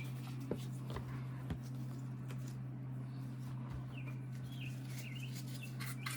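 A steady low hum, with small bird chirps now and then, mostly in the second half. A few light clicks come in the first second or so, and a short burst of rubbing or handling noise near the end.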